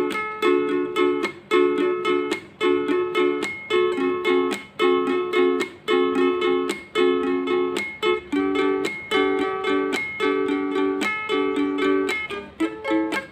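Background music: a plucked-string instrument strummed in a steady, even rhythm, with the chords about one and a half a second.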